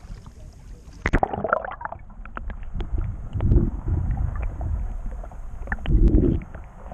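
A handheld action camera plunges into the sea with a splash about a second in. After that the sound is muffled underwater water movement: a low sloshing rumble with small clicks, swelling twice.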